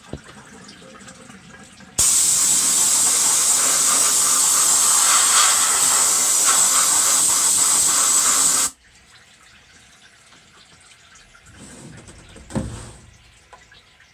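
A pressurised spray on a CNC mill hisses loudly and steadily. It switches on suddenly about two seconds in and cuts off suddenly some six and a half seconds later. A short, sharper sound follows near the end.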